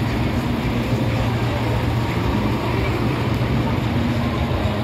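Steady low rumble of parked heavy trucks' diesel engines idling, with faint voices in the background.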